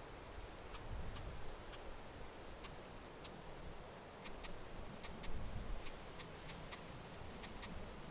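Wind gusting against the microphone in low rumbles, loudest about a second in and again past the middle, with scattered sharp high ticks at irregular intervals.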